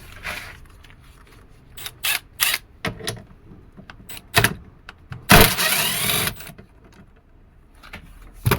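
A hand tool undoing a bolt on the vehicle: a few sharp clicks and metal knocks, then a louder rasping run lasting about a second. The bolt holds the door-open ground, and undoing it makes the circuit read as a closed door.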